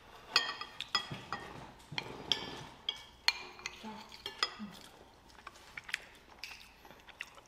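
A metal spoon and chopsticks clinking and scraping against Villeroy & Boch porcelain rice bowls: a scattered series of short, sharp clinks that ring briefly, growing sparser toward the end.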